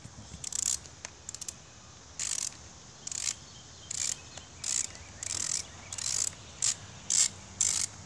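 Socket ratchet clicking in a dozen short bursts, roughly one or two a second, as the handle is swung back and forth to back out a screw on a lawn mower carburetor.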